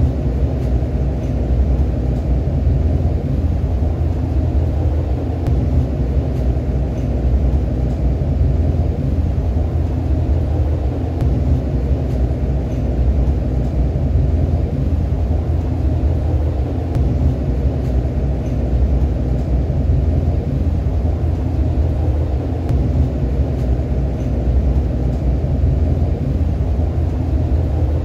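Steady low rumble inside a moving REM light-metro car, from its wheels and running gear on the track.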